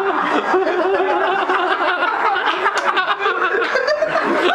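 People laughing hard, their voices overlapping, with bits of indistinct talk mixed in.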